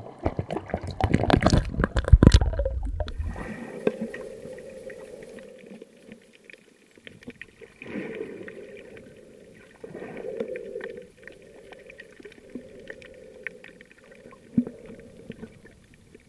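Water splashing and sloshing at the surface for the first three seconds or so. Then a muffled underwater wash of water, swelling and fading every second or two, with faint scattered clicks.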